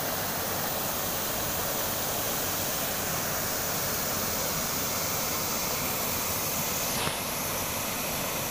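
Shallow river water rushing steadily over stones in a riffle, with a single brief knock about seven seconds in.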